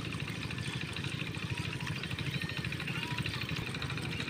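Single-cylinder Chinese Tuber diesel engine running steadily, driving a tubewell water pump.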